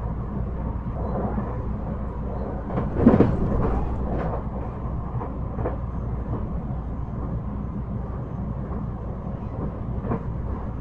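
Onboard running sound of a JR 223-5000 series electric train: a steady low rumble of wheels on rail, with a sharp clank about three seconds in and a few lighter clicks after it.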